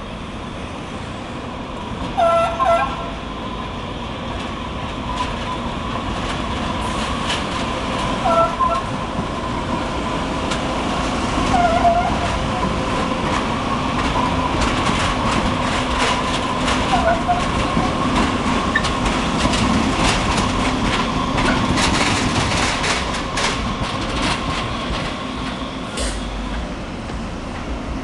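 San Francisco Muni Breda light-rail car running past on street track, with a steady electric hum and a dense run of clicks and clatter from its wheels on the rails during the loudest part of the pass. A few brief short squeals are heard about two, eight, twelve and seventeen seconds in.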